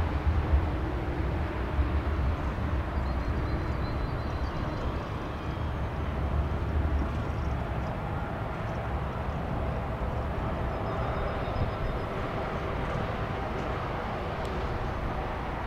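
Airbus A380 jet engines rumbling steadily; the deep low rumble eases after the first several seconds.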